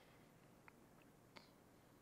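Near silence: quiet room tone with three faint, short clicks in the middle of the pause.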